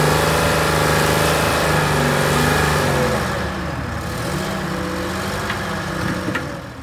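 Engine of an old heavy earthmoving machine running, steady and loud for about three seconds, then quieter as its pitch dips and rises again with the engine speed.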